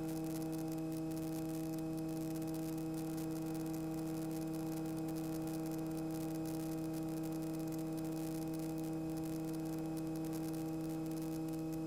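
Steady, unchanging hum made of a stack of fixed tones: the drone of a single-engine piston training aircraft cruising on downwind, heard through the cockpit intercom feed.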